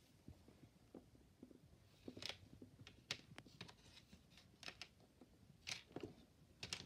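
Faint, scattered clicks and taps of small plastic LEGO pieces being handled and fitted together, about half a dozen over several seconds.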